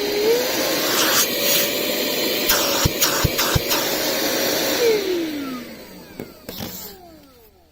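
WORX WX030L 20V cordless car vacuum running with a steady whine that steps up slightly in pitch just after the start, as it goes to full power. A few short knocks come in the middle, then about five seconds in it is switched off and the motor winds down, its whine falling away.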